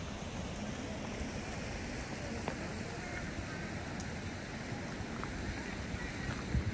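Outdoor ambience: wind rumbling on the microphone over a steady hiss, with a few faint ticks.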